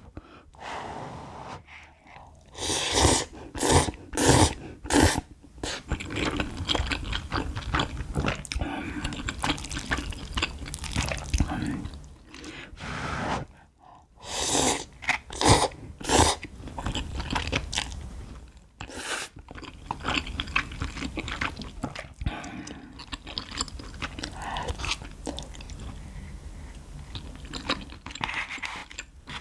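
Slurping and chewing of instant cup ramen noodles: a run of loud slurps a few seconds in, another run about halfway through as the cup is raised to the mouth, and steady chewing in between.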